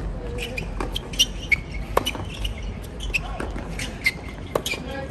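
Tennis ball bounced on the hard court, then struck hard by the racket on a serve about two seconds in, followed by further sharp racket hits of the rally near the end.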